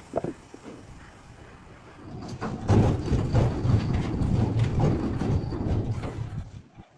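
Loud rattling, rumbling machine noise that starts about two seconds in and stops near the end, after a few light clicks at the start.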